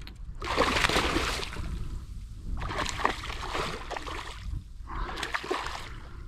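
Water splashing in three bursts, a hooked redfish thrashing at the surface beside the kayak while it fights the line.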